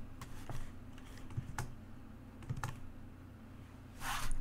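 Occasional keystrokes on a computer keyboard: a few separate taps with pauses between them. A brief, louder hiss comes near the end.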